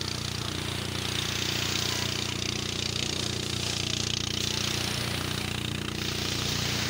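An engine running steadily at one unchanging pitch, under an even hiss.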